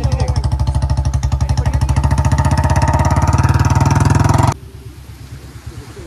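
Motorcycle engine running close up while riding, a fast steady firing pulse with a deep rumble. About four and a half seconds in it drops abruptly to a much quieter running sound.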